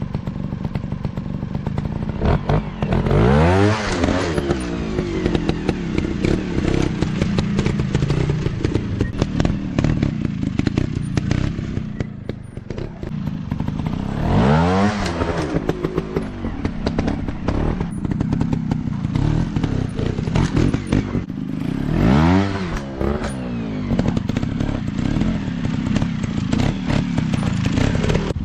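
Small trail dirt-bike engine running steadily, with the throttle opened sharply several times so the revs climb and drop back.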